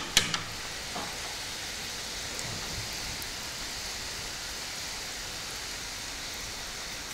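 Besan sev frying in hot oil in a kadhai: a steady sizzling hiss, with a short clink at the very start.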